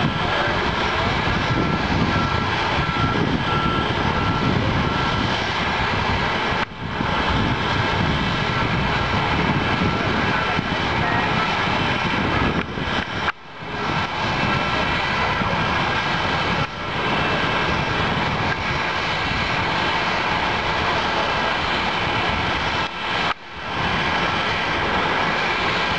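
Jet airliner engines running with a steady roar and a faint high whine. The sound breaks off briefly a few times, at about 7, 13, 17 and 23 seconds in.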